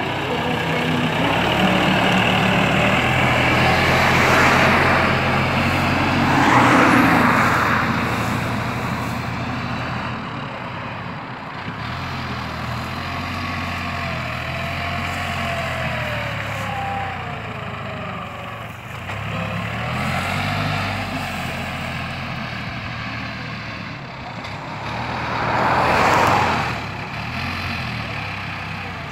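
New Holland compact tractor's diesel engine running steadily under load as it pulls a disc plough through the soil. Twice, about seven seconds in and near the end, a brief loud rush of noise rises over the engine.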